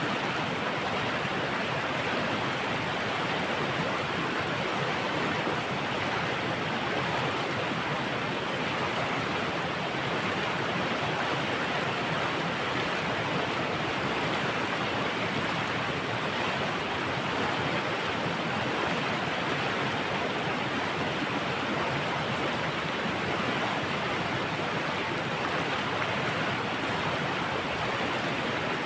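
Water pouring steadily over a dam or weir in a forest, a continuous even rushing with no change.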